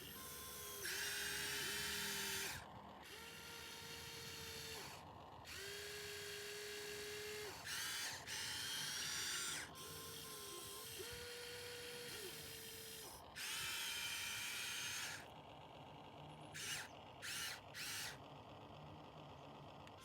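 Small electric motors of a radio-controlled model excavator whirring in repeated bursts of one to two seconds, with a steady whine that comes and goes, then three short blips near the end.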